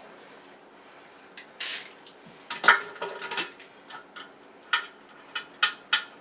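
Irregular metallic clinks and clicks of nuts, washers and a tool on the toilet's floor bolts as they are tightened, with a short scrape about a second and a half in.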